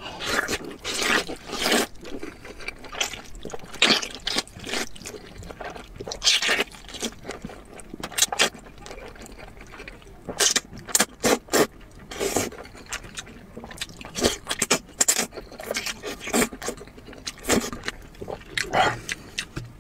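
Wet slurping of wide, flat noodle sheets in sesame sauce, in many short, irregular bursts, with chewing between them.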